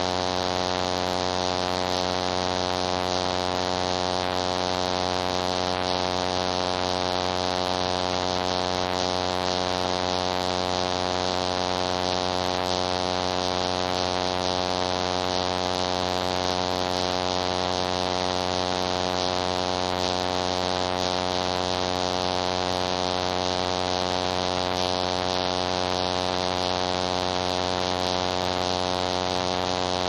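High-voltage power transformer humming steadily, a buzzing electrical hum with many overtones and a constant hiss above it.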